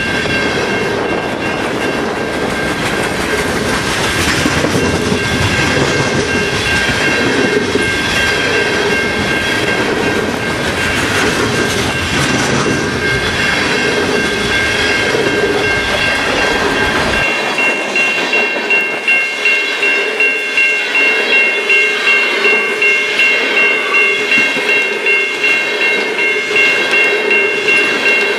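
Freight cars, mostly tank cars, rolling past at track speed, with steel-wheel rolling noise and a steady high-pitched ringing. About two-thirds of the way in the deep rumble drops away and a rhythmic clickety-clack of wheels over rail joints takes over, a little over one beat a second.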